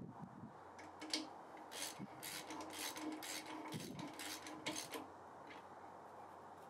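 Faint, irregular metallic clicks and scrapes of a wrench working the bolts on a cast iron bandsaw's upper wheel assembly as it is tightened up; they stop about five seconds in.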